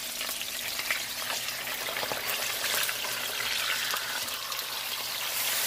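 Chile-marinated pork fillets sizzling steadily in hot oil in a nonstick frying pan, with a couple of light clicks of metal tongs as the pieces are turned over.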